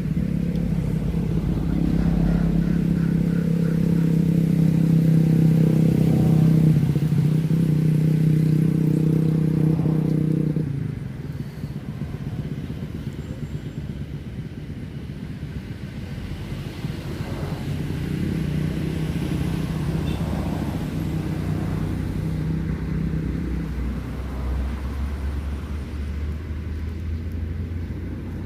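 Motor vehicle engine running steadily, loud for about the first ten seconds, then dropping away. A second, quieter engine sound follows a few seconds later, then a low hum.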